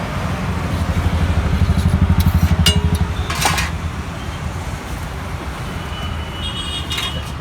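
A road vehicle's engine passing close by: a low throb that swells about two seconds in and then fades. A couple of sharp clinks come a little after the peak.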